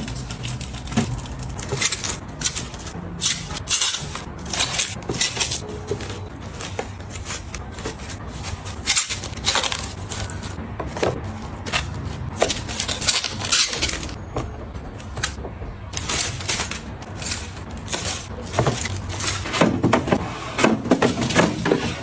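Irregular small taps, clicks and rustles of household items being handled and set down, in a quick uneven run.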